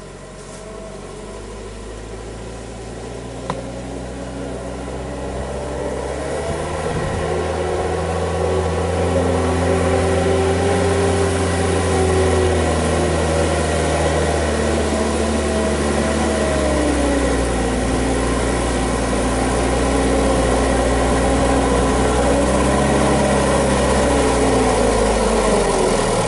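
Mitsubishi Colt Diesel truck's diesel engine labouring under load on a hill climb, which it is underpowered for. It grows louder over the first several seconds, then holds steady with its pitch sagging and recovering a little.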